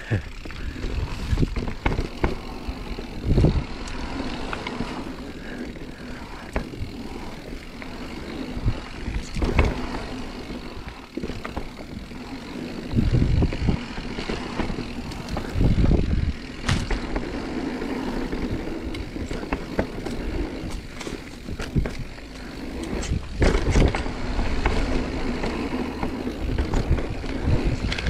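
Marin Mount Vision 8 mountain bike running down a dirt singletrack: tyres rolling on dirt with frequent knocks and rattles as it goes over bumps, and wind buffeting the microphone in gusts.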